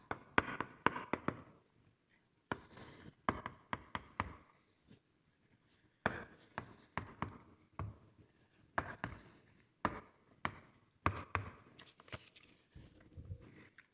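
Writing on a board: an irregular run of short taps and scratches with brief pauses between strokes.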